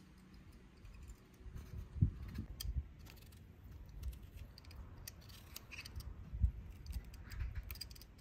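Vegetable peeler cutting the skin off a raw turnip in short, irregular scraping strokes, with a few soft low thumps.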